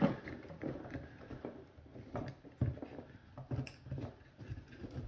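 Plastic parts of a Lexus LS460 side-mirror assembly clicking and knocking as it is worked apart by hand: a string of irregular small clicks and light knocks.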